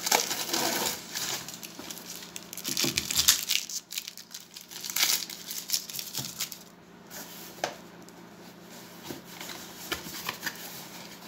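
Packing tape being peeled and torn off a cardboard shipping box, with scraping and rustling of the cardboard as it is handled and the flaps are opened. Irregular rasping bursts, busiest in the first half and quieter from the middle on.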